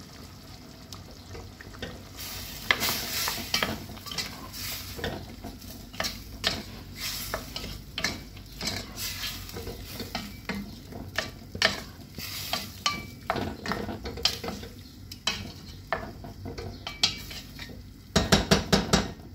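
Wooden spoon stirring chicken stew in a stainless steel pot, scraping and knocking irregularly against the pot, with the contents sizzling over the heat. Near the end a quick run of sharp taps as the spoon is knocked on the pot rim.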